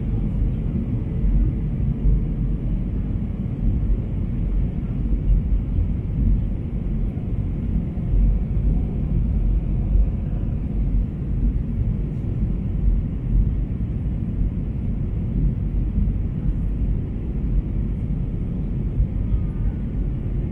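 Steady low rumble of an airliner cabin in flight during the descent to land: jet engine and airflow noise heard from a seat by the wing.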